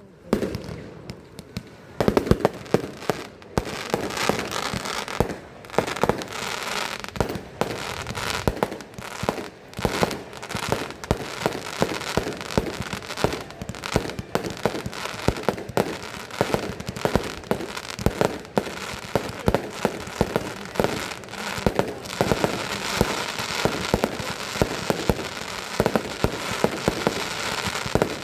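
Fireworks display going off: a few scattered bangs, then from about two seconds in a dense, continuous barrage of bangs and crackling.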